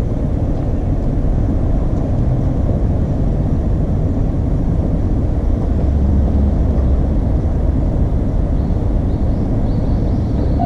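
Steady low rumble of outdoor street noise, with no distinct event standing out.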